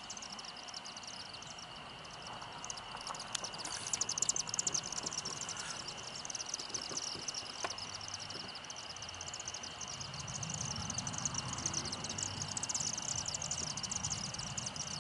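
Evening chorus of crickets and other insects: a dense, fast, high-pitched pulsing over a steady high tone. A low rumble joins about ten seconds in.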